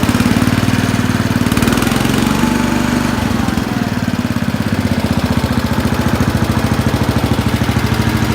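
Cub Cadet 149 garden tractor's single-cylinder Kohler engine running steadily.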